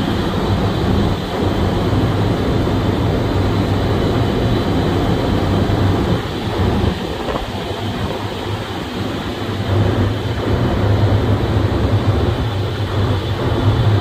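Rosenberg mechanical ventilation fans running with a steady low rumble.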